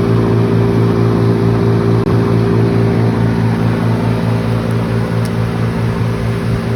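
Engine of a large wood chipper running steadily: a loud, even drone with a slight regular pulse.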